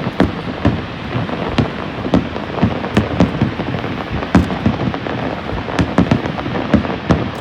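Aerial fireworks display: a steady crackling hiss with many irregular bangs of bursting shells, several a second, some heavier and deeper than others.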